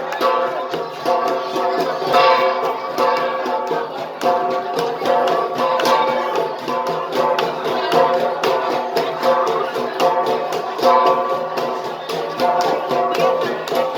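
An ensemble of gangsa, flat bronze gongs, struck in a fast, steady, interlocking rhythm, their ringing tones overlapping and swelling about every two seconds.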